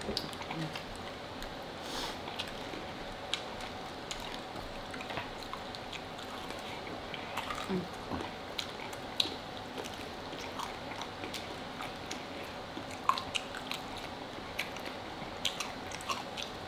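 Close-miked chewing and biting of food, with many small crisp clicks and a few short low mouth sounds scattered throughout.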